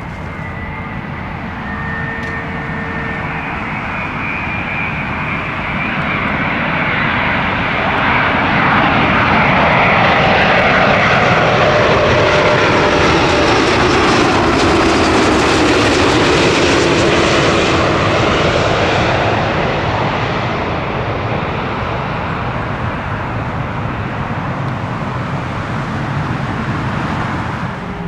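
Airbus A350 jet airliner passing with its Rolls-Royce Trent XWB engines. The engine noise builds to a loud peak around the middle and then fades, with whining tones that fall in pitch as it goes by.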